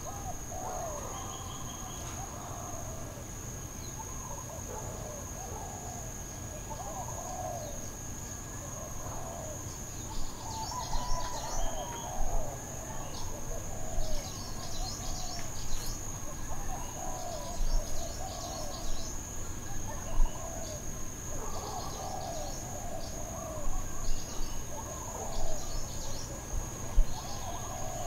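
Birds calling over a steady high insect drone, with a denser run of short, sharp chirps starting about ten seconds in.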